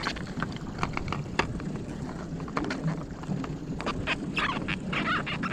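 Water splashing in short bursts as a hooked catfish thrashes at the surface beside an aluminum jon boat while being hauled up on a jug line, with scattered knocks and clicks of gear against the hull. The splashing comes in quicker clusters from about four seconds in, over a low wind rumble.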